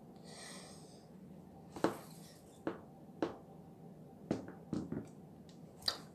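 Game tiles clicking as they are handled and set against each other, about eight short sharp clacks at uneven spacing, after a soft rustle in the first second.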